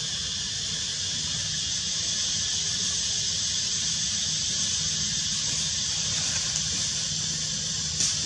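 Steady high-pitched drone of forest insects, unbroken, over a low hum, with one short click near the end.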